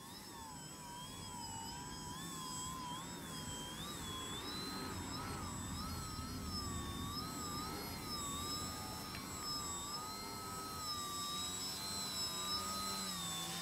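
Electric motor and propeller of a Shockflyer Edge foam aerobatic RC plane in a nose-up prop hang, a whine whose pitch wavers up and down as the throttle is worked to hold the hover.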